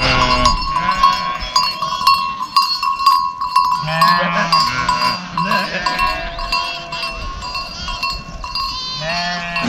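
Livestock bells ringing and clinking steadily, with animals bleating now and then, loudest about four seconds in and again near the end.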